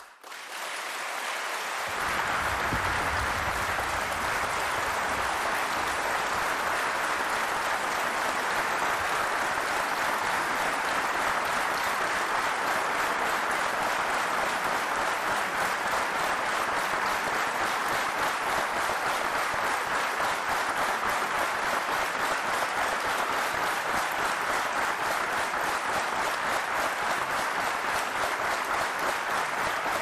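Sustained applause from a large audience, building over the first couple of seconds and then holding steady without a break.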